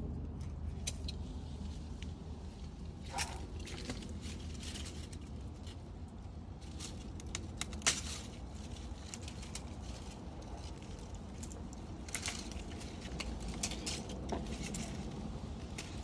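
Handling noise from a netted grapevine: scattered rustles and light clicks as grape bunches, leaves and netting are pushed aside and pulled, with one sharper click about halfway through, over a low steady rumble.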